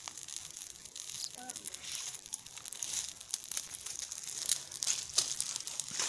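Dry palm fronds crackling and rustling, with many small irregular snaps over a steady high hiss.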